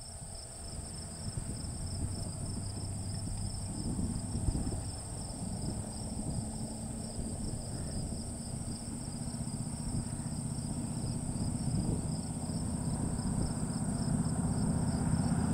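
Insects chirring steadily in two high, unbroken bands over a low hum and rumble that slowly grows louder.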